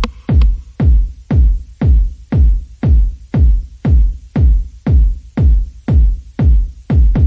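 Electronic background music with a steady, heavy kick-drum beat, about two beats a second.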